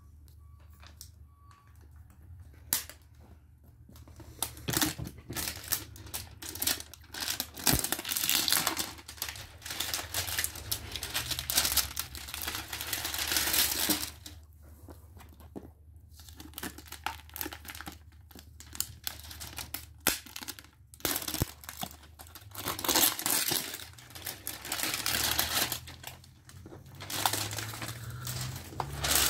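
Plastic shrink-wrap being torn and crumpled off a cardboard box set, crackling in irregular bursts with a few short pauses, starting a couple of seconds in.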